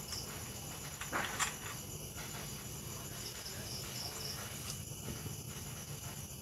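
Crickets chirping in short trains of high pulses, twice, with a brief knock about a second in.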